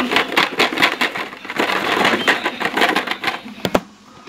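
Close handling noise: rapid crackling and clattering of hard plastic being handled against the microphone, ending in two sharp clicks near the end.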